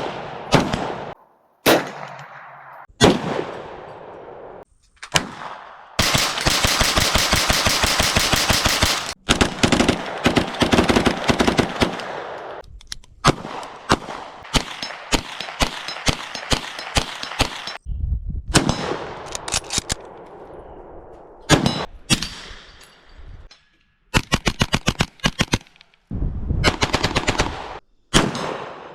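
Gunfire from a series of different firearms. Single shots with a ringing echo alternate with fast strings of shots, the longest lasting about three seconds.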